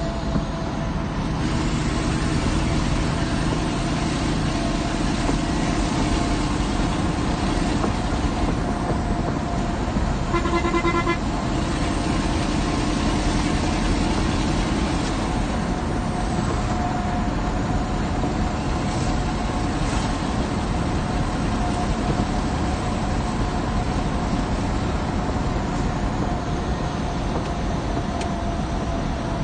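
Inside the cab of a Mercedes-Benz SK 1853 truck under way: the steady run of its diesel engine and road noise, with a constant whine. A horn sounds briefly about ten seconds in.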